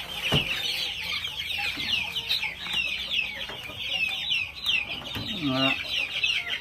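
A flock of chicks peeping nonstop in many overlapping short, falling high notes. A lower chicken call cuts through near the end.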